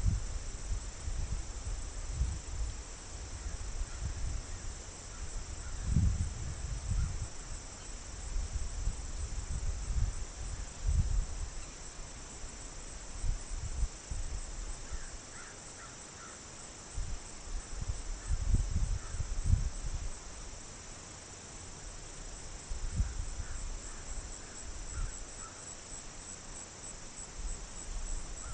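Steady high-pitched chorus of crickets and other insects, with irregular low rumbles and thumps close to the microphone. A few faint short calls come around the middle and near the end.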